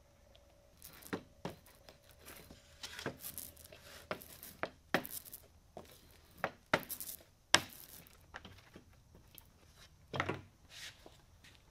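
Hand roller spreading wet glue over a flat board, with a sticky tearing crackle and irregular clicks and knocks of the roller frame and the glue cup against the board and bench. A heavier knock comes near the end.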